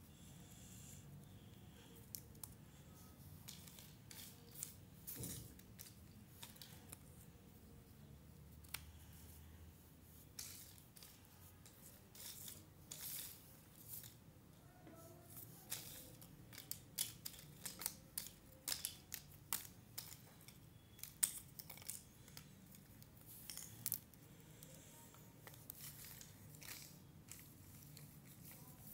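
Cardboard jigsaw puzzle pieces being handled: faint, irregular clicks and light scraping as pieces are picked from a pile, slid about and pressed together, busiest in the second half.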